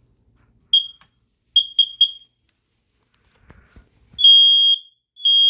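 Home smoke alarm under test: one short high chirp, then three quick chirps, a few faint knocks, then the full alarm starts with long steady high beeps about a second apart.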